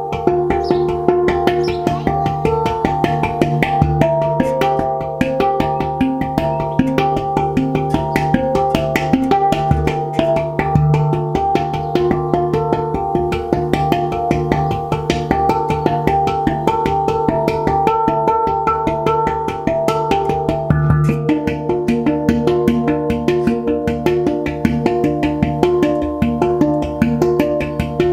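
Handpan played by hand: quick, continuous runs of finger strikes on the steel tone fields, the pitched notes ringing on and overlapping one another.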